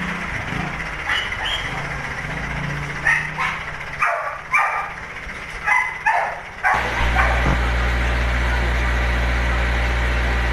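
A dog barks several times in quick succession, then a steady engine hum starts about two-thirds of the way in and carries on.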